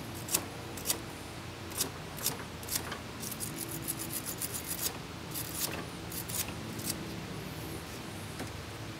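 Wire brush scrubbing corrosion off car battery terminals in short scratchy strokes, with a fast run of strokes in the middle.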